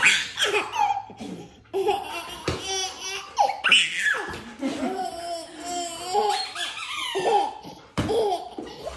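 A person laughing in several bursts.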